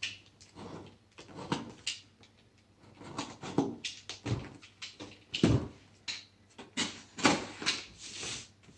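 Utility knife slicing and scraping along the taped seams of a small sealed box, in a dozen or so short, irregular strokes.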